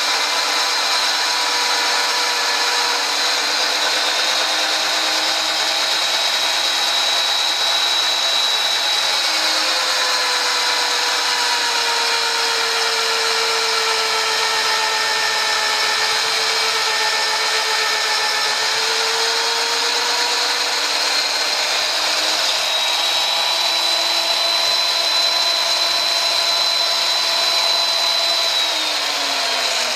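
XIMA CA-28 magnetic-base drill running a 14 mm twist bit through 5 mm steel plate: a steady motor whine that sags lower in pitch under the cutting load in the middle and climbs back as the load eases. Near the end the whine glides down as the motor winds down.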